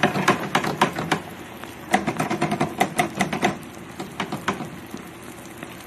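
Bream frying in hot grease in an outdoor two-basket fish fryer: a steady sizzle broken by bursts of sharp crackling and popping. The crackling is densest in the first second and again from about two to three and a half seconds in.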